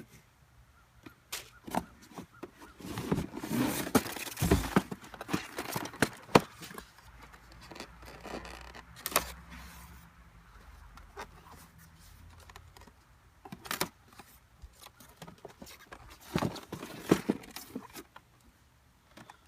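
Unpacking by hand: packaging rustling with scattered clicks and knocks from handling. It is busiest about three to five seconds in, with a few sharper knocks later.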